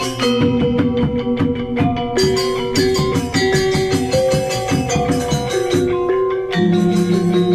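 Gamelan-style music of tuned mallet percussion: fast struck notes over held, ringing tones, with a new set of low held notes coming in near the end.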